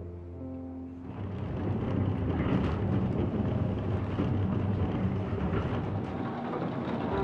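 Water-powered flour mill machinery running: a steady low rumble with a rushing hiss that rises in about a second in.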